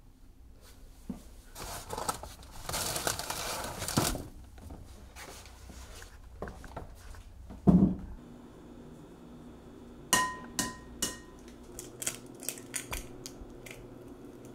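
Kitchen handling sounds. First rummaging and rustling at an open refrigerator, then a dull thump, the loudest sound, about eight seconds in. Near the end comes a quick run of sharp clinks, some ringing briefly, from glassware such as a glass mixing bowl.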